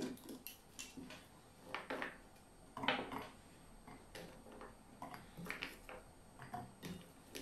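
Irregular light knocks and clatters as the lid of a portable blender is taken off and chunks of fruit are picked from a steel plate and dropped into its glass jar.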